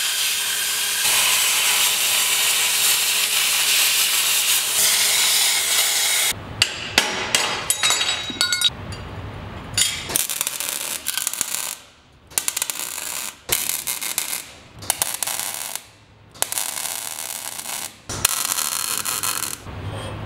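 Wire-feed welder laying a bead on the go-kart's steel frame, a steady crackling hiss for about six seconds. Then comes a string of short start-stop bursts of metalwork on the frame with brief pauses between them.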